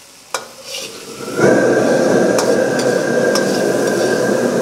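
Scored squid frying in hot oil in a carbon-steel wok, stirred with a metal ladle that clicks against the pan now and then. About a second and a half in, a loud steady rushing sound starts suddenly and carries on.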